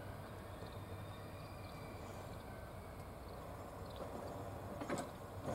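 Diesel-electric railcar (JR East GV-E400) running, a faint steady low engine hum carried from a distance. Two sharp clicks near the end.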